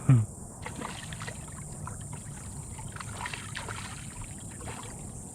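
Water lapping and sloshing around a kayak, with small splashes and faint ticks while a hooked redfish is fought to the boat. A short vocal exclamation is heard right at the start.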